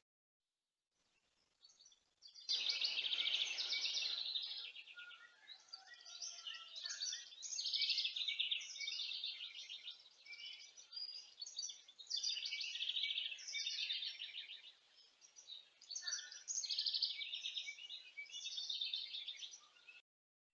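Songbirds calling in a string of rapid, chattering trills, one burst after another, each lasting a second or two.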